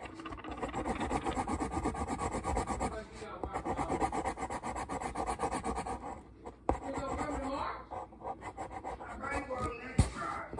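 A marker rubbed quickly back and forth over foam board in rapid scratchy strokes, colouring in, with two short pauses and a sharp knock near the end.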